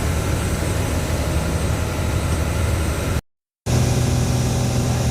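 Fishing boat's engine running steadily under way, a constant low hum with water and wind noise. The sound cuts out completely for about half a second, about three seconds in, then comes back with a steadier, more tonal drone.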